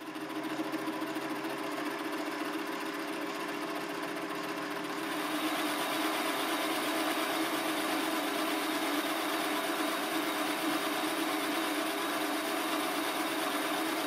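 Chinese hobby metal lathe running, its spinning chuck giving a steady machine hum. About five seconds in it gets louder and hissier as the cutting tool works the metal workpiece.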